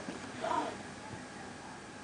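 A brief faint voice about half a second in, then quiet studio room tone with a steady low hiss.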